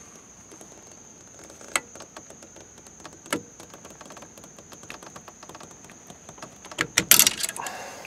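Small metal clicks and clinks of snap-ring pliers working the retaining clip off the steering shaft: a few sharp clicks spread out, then a quick cluster of clinks near the end as the clip comes off.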